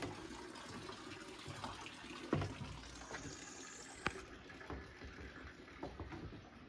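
Running water with a few soft knocks.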